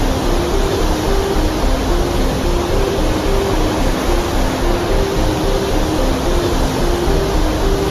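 Loud, steady noise of rushing water with a deep rumble, with a soft melody of short repeating notes from background music underneath.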